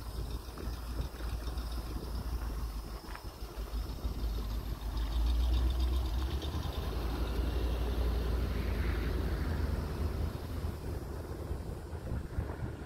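Wind buffeting the microphone, a low rumble that grows louder about five seconds in and eases off near the end.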